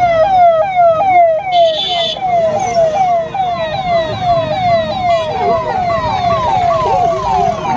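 Police vehicle's electronic siren sounding a fast, repeating yelp, each note falling in pitch, about three a second, with crowd noise underneath.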